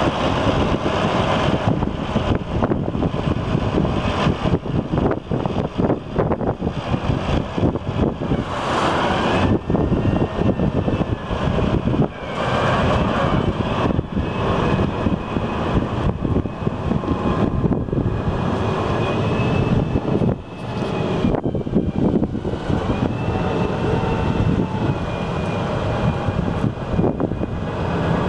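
2012 Versatile 450 four-wheel-drive tractor's diesel engine running as the tractor drives and turns, with a faint high whine that wavers in pitch through the second half.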